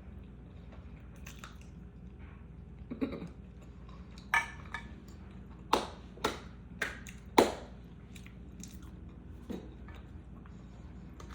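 Close-miked chewing of sauced, breaded boneless chicken wings, with a cluster of short, sharp, wet crunches from bites and chews, most of them in the middle few seconds.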